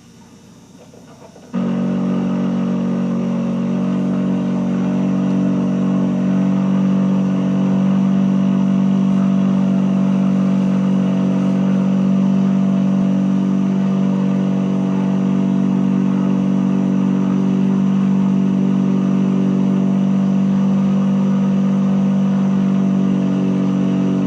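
Single-rotor Mazda rotary aircraft engine conversion running at a steady speed, its sound cutting in abruptly about a second and a half in and holding an even pitch throughout.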